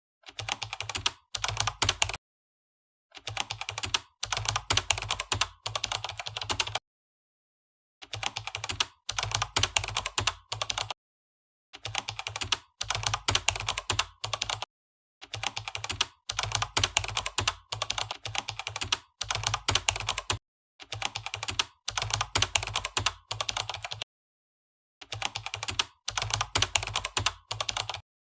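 Keyboard typing: runs of rapid keystrokes, each lasting two to four seconds, about seven runs in all, with about a second of dead silence between them.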